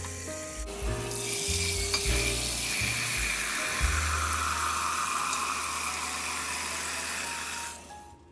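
Kitchen tap running, its water splashing into a stainless steel pot as the pot fills; the flow stops near the end.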